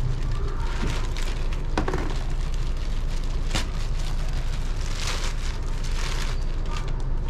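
Plastic courier bag and paper wrapping crinkling and rustling as a parcel is pulled open by hand, over a steady low rumble.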